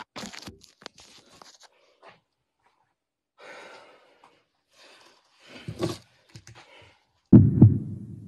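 Faint breathing, rustling and small clicks of a handheld phone recording; about seven seconds in, a loud, low double thump of a heartbeat sound effect starts and dies away.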